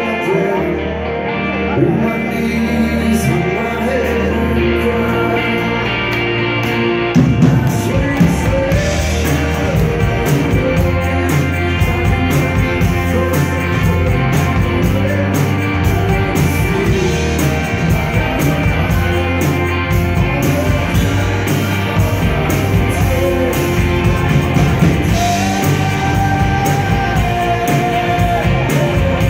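Rock band playing live: two electric guitars, a drum kit and a male lead vocal. The drums come in heavier about seven seconds in.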